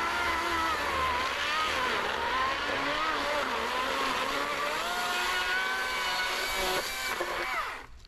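Wild Badger Power 40V brushless cordless chainsaw with a 16-inch bar cutting through a log, its motor whine wavering in pitch with the load. Near the end the pitch falls and the sound stops suddenly as the saw winds down.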